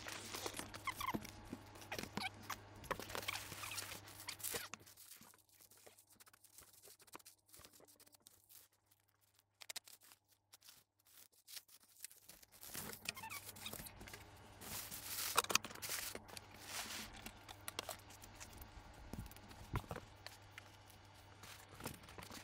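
Polystyrene packing peanuts rustling and squeaking, with plastic bubble wrap crinkling, as hands dig through a packed box and lift out the wrapped item. The handling comes in irregular crackles, stops for several seconds in the middle, then starts again.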